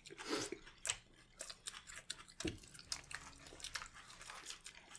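People chewing and eating fast food: faint, irregular small clicks and mouth noises of eating.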